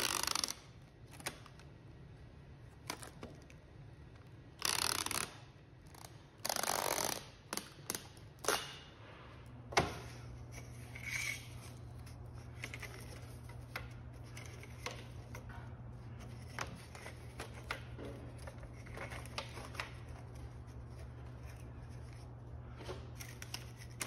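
Packing tape pulled in several long rips from a handheld tape dispenser. About ten seconds in this gives way to light clicks and knocks of thin wooden strips being handled, over a steady low hum.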